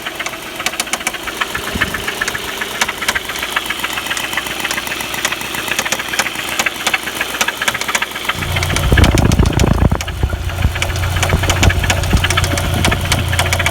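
Audi 1.8T AEB turbo four-cylinder engine running with a fast, loud ticking knock that keeps time with the engine, 'terribly' knocking; the owner thinks it sounds like the hydraulic lifters. A low steady hum joins about eight seconds in and the sound gets louder for a couple of seconds.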